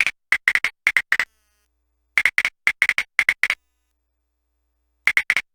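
Circuit-bent My First Smart Pad toy glitching: a tiny chopped fragment of its sampled voice stutters in rapid runs of short blips, about six a second, broken by a second and a half of dead silence before another run starts.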